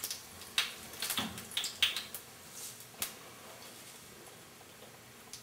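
A metal spoon clicking and clinking in a glass spice jar as whole spice seeds are scooped out into a pan of hot oil. The sharp clicks come in a quick cluster over the first two seconds, with one more about three seconds in.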